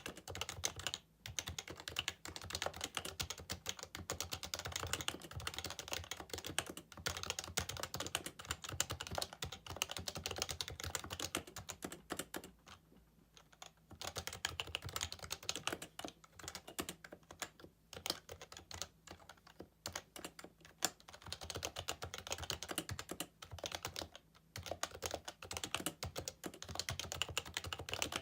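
Fast, continuous typing on a Happy Hacking Keyboard Professional 2, its Topre capacitive keys clacking in quick runs. There are brief pauses, the longest about a second and a half near the middle.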